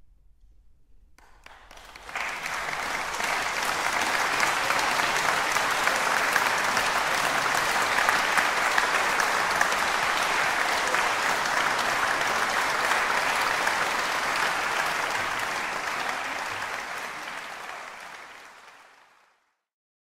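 Audience applauding: the clapping starts about two seconds in, holds steady, then dies away near the end.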